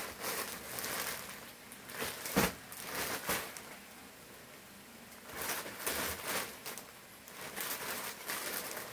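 Plastic poly mailer bag rustling and crinkling as it is handled and turned over, with one sharp knock about two and a half seconds in.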